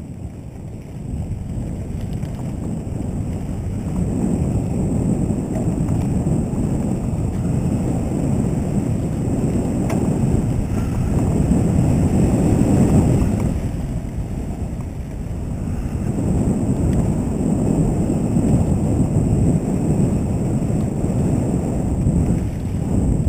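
Wind rushing over the microphone of a camera on a mountain bike moving fast down a dirt trail, over the low rumble of the tyres. It builds over the first few seconds, is loudest near the middle, eases briefly, then picks up again.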